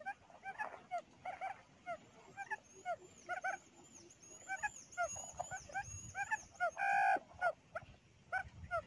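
Quail calls: short rising chirps repeated several times a second, with a faint high wavering whistle in the middle and one louder, held call about seven seconds in.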